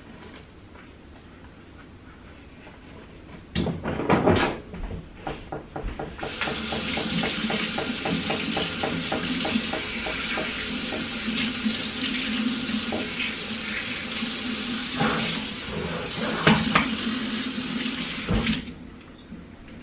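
Kitchen faucet running into a stainless steel sink for about twelve seconds while items are rinsed under it, then shut off near the end. A few knocks and clatters come just before the water starts and again during the rinse.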